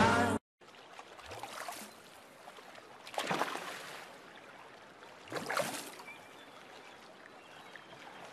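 Quiet sea water lapping, with a few soft swells of sound about three and five and a half seconds in.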